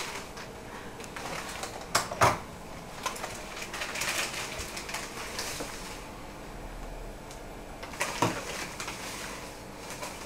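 A clear plastic bag being handled and crinkled over a glass, a steady crackly rustle, with a few sharp knocks about two seconds in and again near eight seconds.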